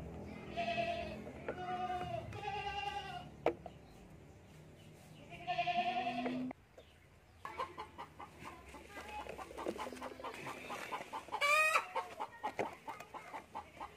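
Chickens calling and clucking: drawn-out calls in the first half, a single sharp click about three and a half seconds in, then quick repeated clucks with one sharp high squawk near the end.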